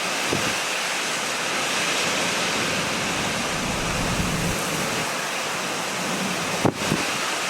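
Hurricane wind and wind-driven rain making a steady hiss with little low rumble. A brief click near the end.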